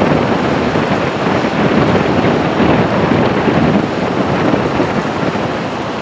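Heavy surf breaking on a sandy beach: a loud, continuous wash of crashing waves with a deep rumble, and wind buffeting the microphone.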